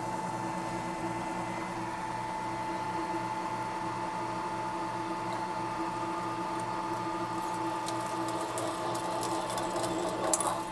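Milling machine spindle running a 3/4-inch twist drill down through aluminium plate: a steady machine sound with a constant tone, and small clicks and crackles of chips breaking off in the last few seconds.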